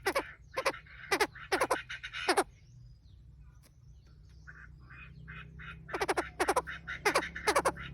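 Chinese francolins, male and female, calling: a run of harsh, downward-sweeping notes about two a second, a pause of about three seconds with a few faint notes, then another run near the end. A recording of the kind used as a lure to draw wild francolins.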